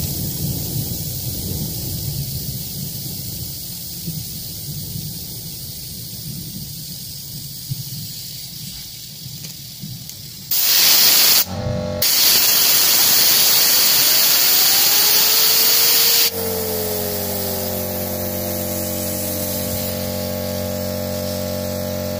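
Compressed air from a blow gun hissing onto a fidget spinner: a short loud blast about ten seconds in, then a longer blast of about four seconds during which the spinner's whine rises in pitch. When the air stops, a steady hum sets in and the spinner's tone falls as it slows down.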